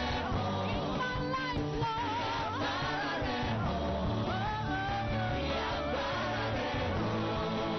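Church praise-and-worship band playing with singing over it: voices gliding through a melody above a steady bass line and full backing.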